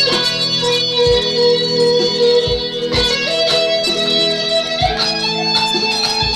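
Electric guitar playing a slow lead line of long held notes, stepping up in pitch about halfway through, with short low thumps every second or two underneath.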